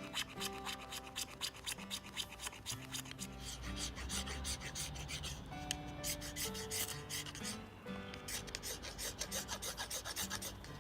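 Rapid, rhythmic rasping strokes, about four a second, over quiet background music.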